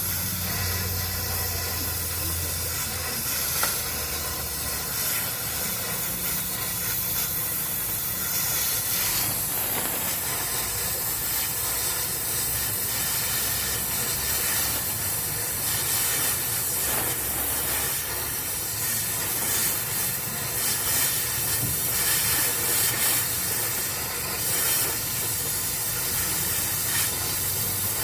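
Steady, loud hissing noise, with a low hum underneath that is strongest in the first few seconds.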